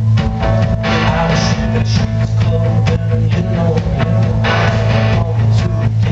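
Live rock band playing: strummed guitar over bass and a drum kit, with cymbal crashes about a second in and again around four and a half seconds.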